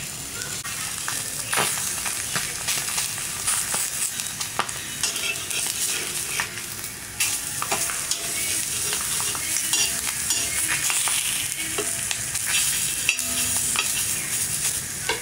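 Lamb spleens sizzling steadily on a hot flat tawa griddle, with scattered clicks and scrapes of a metal spatula turning them. They are being seared whole to firm them up for cutting.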